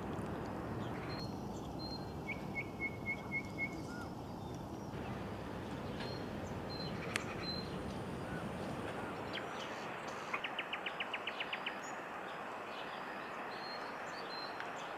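Lakeside ambience: small birds calling over a steady background hiss, with a run of about six short notes about two to four seconds in and a fast trill of about ten notes later on, plus a single sharp click around seven seconds in.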